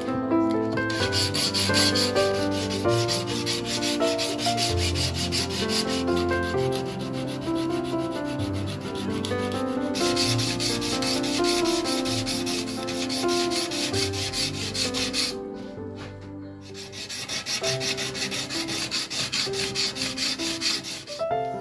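Sandpaper rubbed by hand in quick back-and-forth strokes along a steel knife blade, hand-finishing the 80CrV2 steel, with a short pause about three-quarters of the way through. Background music plays underneath.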